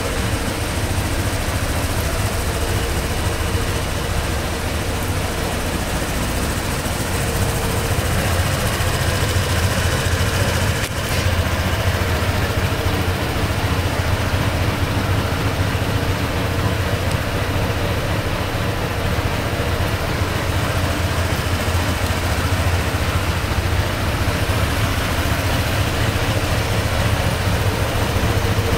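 Honda PCX125 scooter's single-cylinder four-stroke engine idling steadily.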